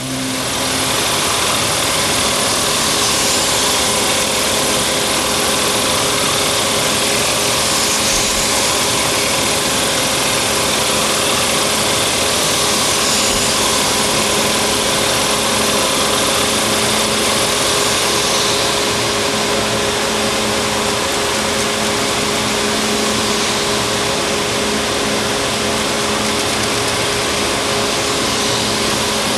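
Textile machinery running steadily: a loud, unchanging mechanical noise with a constant hum beneath it.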